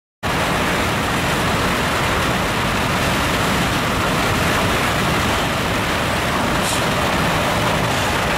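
Steady rushing road and wind noise from a car driving alongside a moving freight train, starting abruptly after a moment of silence.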